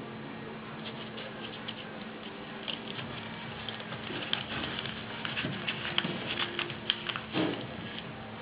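A sheet of paper being folded and creased by hand: irregular small crackles and rustles, thickest in the middle of the stretch, over a steady low hum.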